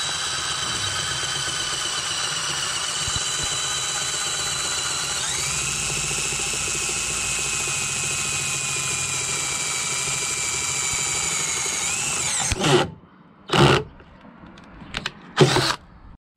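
Cordless drill boring a bolt hole through a steel CB antenna mount bracket, its motor whining steadily. The whine steps up in pitch about five seconds in and stops after about twelve seconds. A few short loud noises follow.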